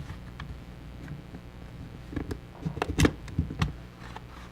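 Light plastic clicks and taps from handling a smartphone's opened frame and tools, a few scattered, then a small cluster about two to four seconds in with the sharpest click near the three-second mark.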